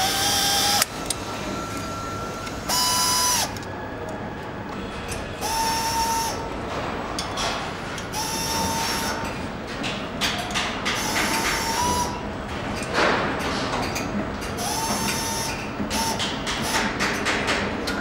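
Handheld power nutrunner driving in the exhaust-manifold bolts of a BMW V8 engine, in about seven short whirring runs of roughly a second each. Clicks and clatter of parts and tools come between the runs.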